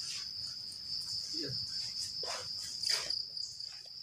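Insects in the forest holding one steady, high-pitched drone without a break, with a few faint brief rustles in the foreground.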